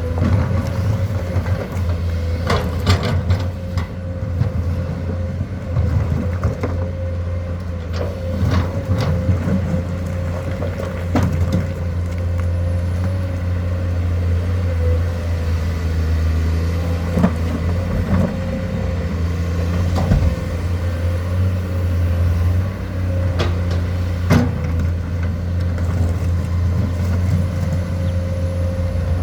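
Komatsu excavator's diesel engine running steadily under work, with a steady whine above it and scattered clanks and knocks, about a dozen in all.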